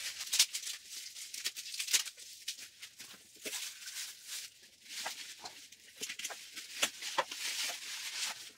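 Tissue paper and bubble wrap crinkling, rustling and tearing as hands unwrap doll parts, with many irregular sharp crackles.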